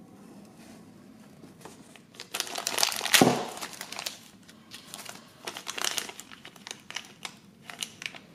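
Thin plastic packaging crinkling in the hands as a blind bag is unwrapped: a dense, loud rustle starting a little over two seconds in and peaking around three seconds, then scattered short crinkles.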